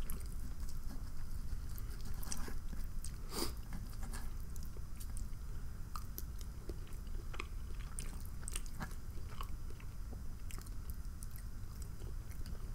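A person chewing and biting food close to the microphone, with scattered short clicks, the sharpest about three and a half seconds in.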